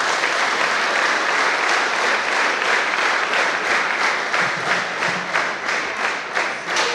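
Audience applauding: a dense, even clapping that thins into more separate claps near the end.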